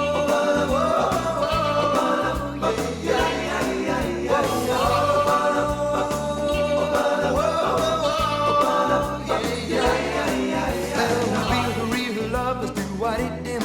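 Rock and roll song in a break between sung lines: long held notes over a stepping bass line and drums.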